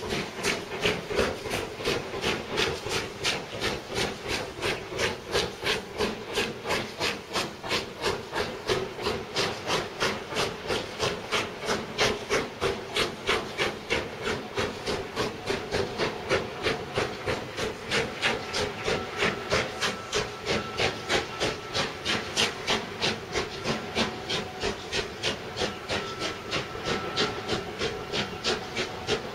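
Steam locomotive working away with its train, its exhaust chuffing in a fast, even rhythm.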